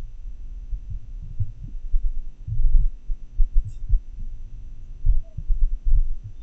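Heart sounds in atrial fibrillation, picked up by a desktop microphone through a funnel against the chest: dull low thumps at irregularly irregular intervals, with no steady beat.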